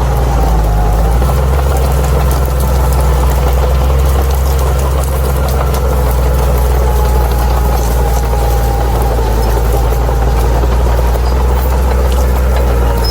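Crawler bulldozer's diesel engine running steadily under load, with a steady higher-pitched whine above the deep engine note.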